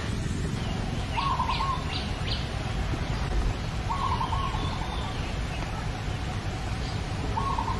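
A bird calling in the background, repeating a short stuttering call about every three seconds, with a few quick high chirps between about one and two and a half seconds in, over a steady low rumble.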